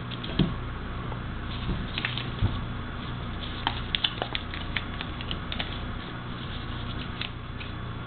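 A sheet of paper being folded and creased by hand: irregular small crinkles and clicks over a steady low hum.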